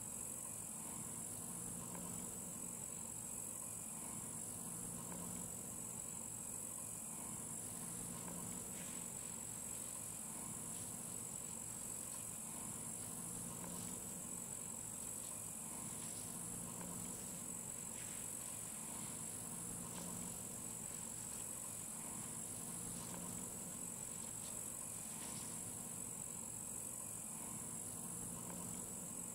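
Insects chirring steadily in a high, even drone, with a faint low tone pulsing about every two seconds and a few faint clicks through the middle.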